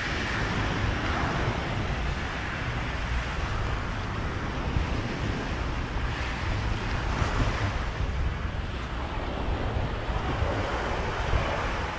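Surf washing onto a beach, rising and falling in a few washes, with wind buffeting the microphone in a steady low rumble.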